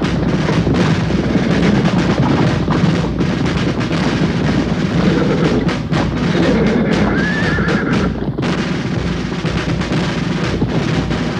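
Film score music with drums, mixed with the hoofbeats of a column of cavalry horses. A horse whinnies about seven seconds in.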